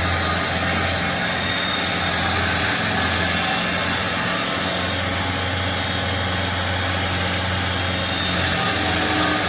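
Stump grinder running steadily, a low engine drone under a continuous hiss.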